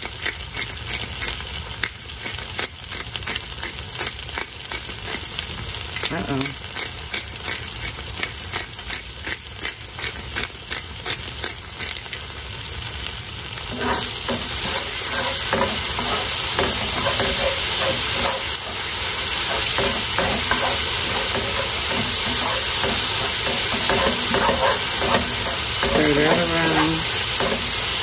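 Onions and celery sizzling in butter in a skillet, with a black pepper grinder clicking rapidly over the pan for the first half. About halfway through the clicking stops and a spoon stirs the vegetables. The sizzle gets louder, with the spoon scraping the pan.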